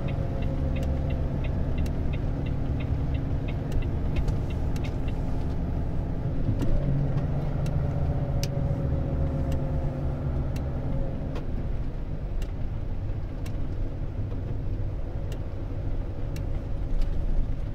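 Inside the cab of a Volvo truck on the move: steady diesel engine and road rumble, with the engine note changing about seven seconds in. A run of quick light ticks comes in the first few seconds, with scattered sharp clicks throughout.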